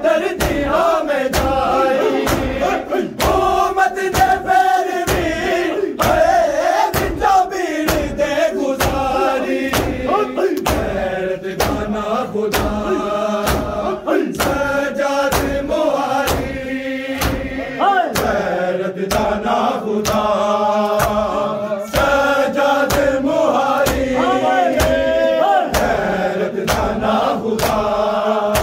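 Men chanting a Shia mourning noha in unison, with matam: many open-handed slaps on bare chests landing together in a steady beat, about one and a half a second.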